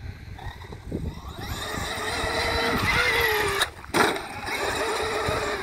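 Traxxas X-Maxx RC monster truck's electric motor and drivetrain whining under throttle, growing louder as the truck speeds up. The whine breaks off briefly and a sharp knock follows near the four-second mark, then the whine resumes.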